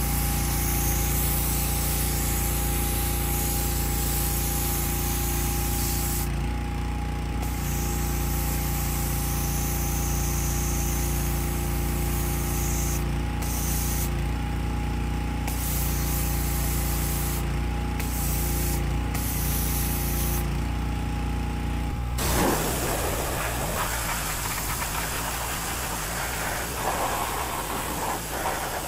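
Pressure washer running, its motor humming steadily under the hiss of the high-pressure spray hitting a stripped lawn-tractor frame. The spray stops briefly several times as the trigger is let go. About 22 seconds in, the motor hum drops out, leaving a rougher hiss and splatter of spray.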